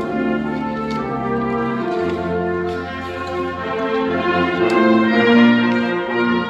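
A brass ensemble playing slow, held chords that change every second or two and swell to their loudest about five seconds in.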